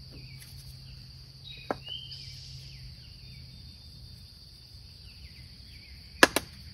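A steady high drone of insects singing, with a few faint bird chirps over it. Two sharp clicks sound close together near the end.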